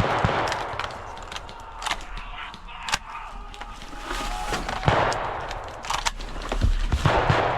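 Airsoft guns firing in a firefight: scattered sharp single shots and a few short rapid bursts.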